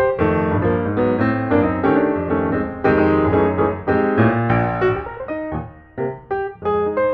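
Background piano music, chords and melody notes struck one after another; it thins out briefly about six seconds in before the notes resume.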